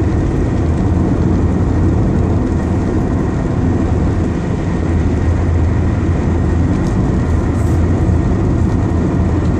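Car driving: a steady low rumble of engine and tyre noise that holds level throughout.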